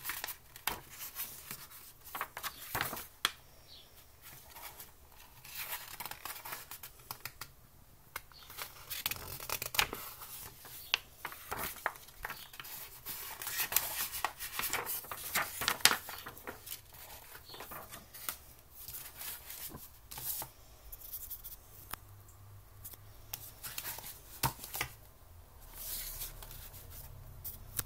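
Paper pages of a booklet being turned and handled close to the microphone: irregular rustling and crinkling with sharp little page flicks.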